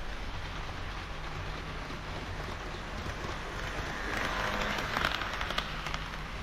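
HO-scale model KiHa 40/KiHa 58 series diesel railcar train running on the layout track: a steady rolling rattle of wheels on the rails over a low hum. It grows louder about four seconds in, with a few sharp clicks.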